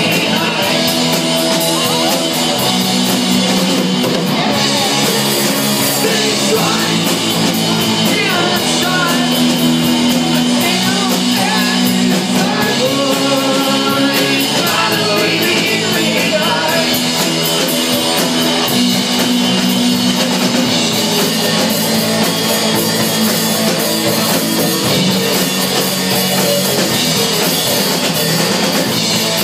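Live rock band playing loud, punk-influenced rock and roll: electric guitar, bass guitar and a drum kit, with a singing voice in the mix at times.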